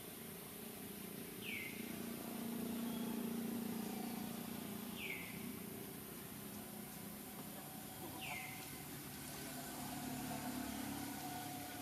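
A bird repeating a short, downward-sliding call three times, a few seconds apart, over a low steady hum.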